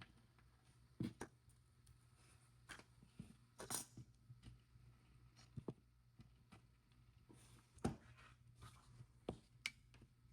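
Faint, scattered small clicks and taps of beaded charms and chain being laid out on a work surface, over near silence.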